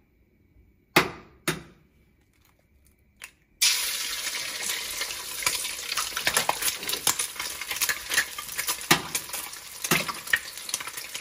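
An egg tapped sharply twice to crack it, then, about three and a half seconds in, egg dropping into very hot oil in a metal kadai and sizzling and spattering steadily with many small crackles. Two more sharp taps near the end as the next egg is cracked.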